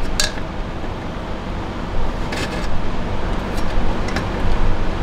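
A few light metallic clicks of needle-nose pliers working a C-clip off a manual transmission part, over a steady low rumble.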